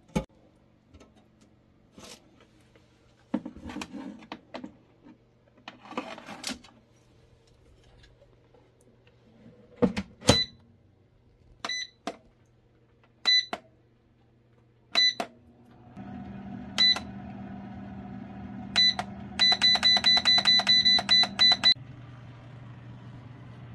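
A few knocks and clatter as a wire-mesh air fryer rack is handled, then a digital air fryer's control panel beeping at each button press: single beeps a second or two apart, then a quick run of about a dozen beeps. From about two-thirds of the way through, the air fryer's fan runs with a steady hum.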